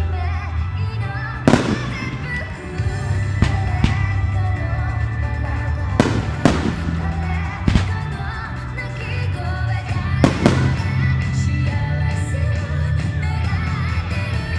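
Fireworks shells bursting over loud music: about eight sharp bangs scattered through, some in quick pairs, with steady music and a strong bass line underneath.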